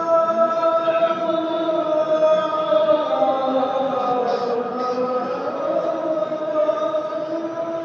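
A man's voice chanting in Islamic recitation style, holding one long drawn-out note that dips in pitch and rises back about halfway through.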